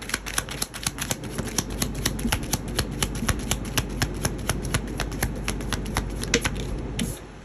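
Tarot deck being shuffled by hand: a quick, even run of cards slapping together, about five a second, stopping shortly before the end.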